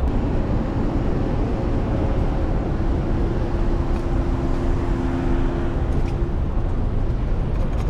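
City street traffic noise mixed with low wind rumble on the microphone of a bicycle-mounted camera as the bike rides through downtown streets. A steady low hum joins for a few seconds in the middle.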